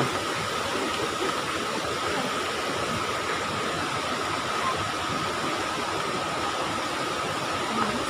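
Steady rushing of a tall waterfall and the river rapids below it, an even noise without breaks.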